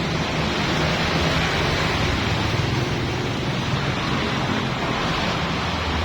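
Small petrol engine of a pressure washer running steadily under a constant hiss of spraying water.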